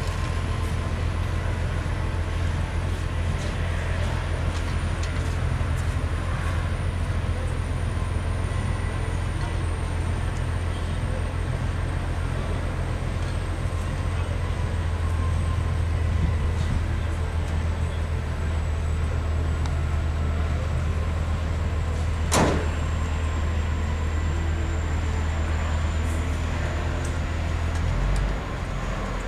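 Steady low engine rumble of an idling vehicle, heard from inside it. There is one sharp click about three-quarters of the way through, and the rumble drops slightly near the end.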